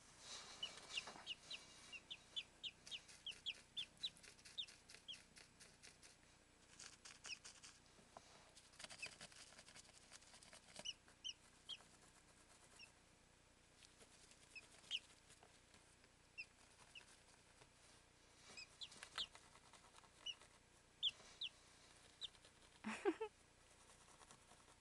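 Young Pekin bantam chicks peeping faintly in short high chirps, a quick run of them early and scattered single peeps after, amid light clicks and taps. A louder brief sound with a rising pitch comes near the end.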